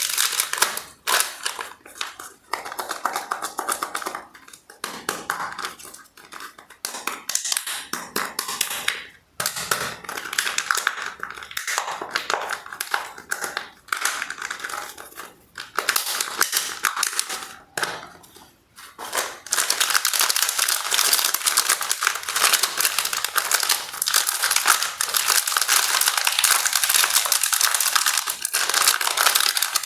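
Plastic candy and snack wrappers crinkling and crackling as they are handled and opened, in stretches broken by short pauses, then without a break over the last third.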